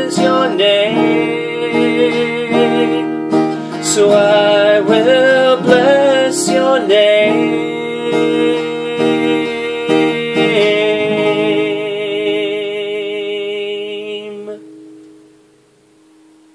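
A man singing with a strummed acoustic guitar; his voice ends on one long held note with vibrato, and the last chord dies away near the end.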